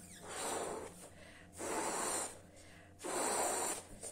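A woman blowing up a latex party balloon by mouth: three long breaths, each under a second, about a second apart.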